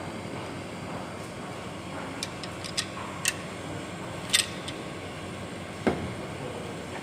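A steady background hum with a handful of sharp, light clicks in the middle and one duller knock near the end, as of small tools and parts being handled on a workbench.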